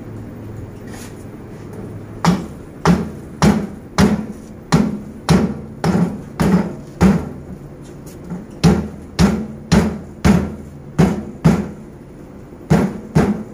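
Steady knocks, somewhat less than two a second, of a cleaver striking the back of a knife blade to drive it into a buffalo foot on a thick wooden chopping block. The knocks pause briefly near the end, then a couple more follow.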